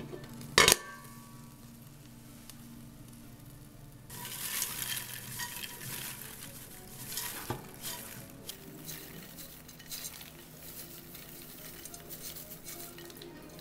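A glass pot lid knocks once, loudly, about half a second in. From about four seconds, freshly popped popcorn pours and rustles out of the pot into a glass dish, with light knocks and scrapes of the pot rim. Faint background music underneath.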